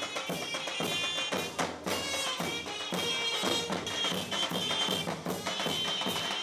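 Mehter (Ottoman military band) music: dense drum and cymbal beats under a high, sustained melody line.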